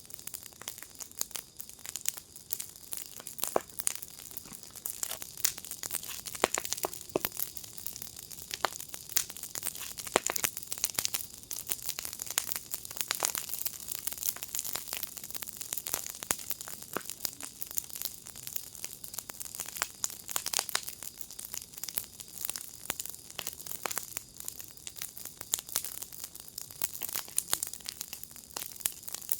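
Fire burning in a fire pit, crackling steadily with a dense, irregular stream of sharp pops and snaps.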